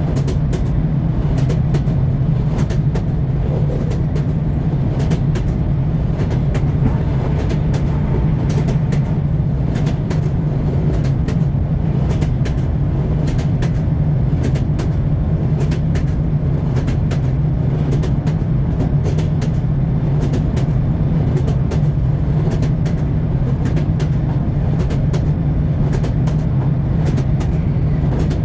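Train wheels clattering on the rails: a steady low rumble with frequent sharp clicks of the wheels passing over rail joints.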